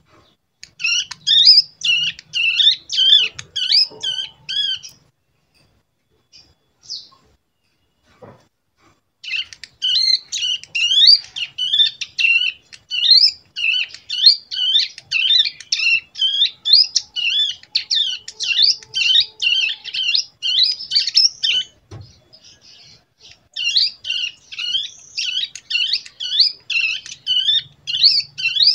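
Young brown prinia (cigun) practising its song: long runs of quick, high, repeated chattering notes. The runs come in three bouts, broken by short pauses a few seconds in and again about three-quarters of the way through. It is a two-month-old bird learning the rapid bren (cicada-like) phrases from a recording.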